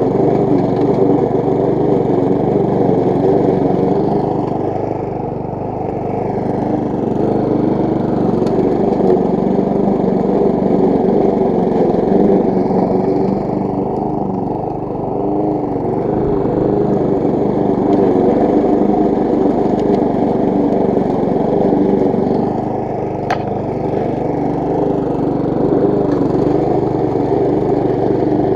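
Briggs & Stratton single-cylinder four-stroke engine on a petrol push lawn mower running steadily while cutting grass, its level dipping slightly three times.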